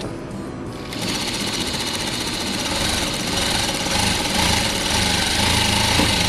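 JACK F4 single-needle industrial lockstitch sewing machine starting about a second in and stitching fabric at speed, a rapid even ticking that grows louder after a couple of seconds. It is a test run of the freshly threaded machine.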